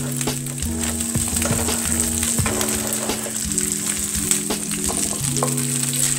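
Carrot and asparagus sticks sizzling in hot coconut oil in a frying pan, with scattered clicks and clatter as more carrots are tipped in and the vegetables are stirred. Background music with held low notes plays underneath.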